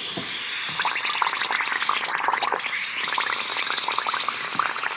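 Compressed air bubbling out of a 5-in-1 air-hose quick-coupler held underwater: a steady hiss with rapid gurgling bubbles. The coupler is leaking air everywhere.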